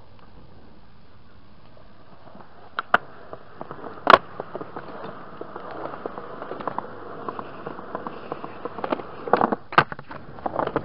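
Skateboard wheels rolling over concrete, with sharp clacks of the board on the ground: a couple about three seconds in, the loudest about a second later, and a cluster near the end.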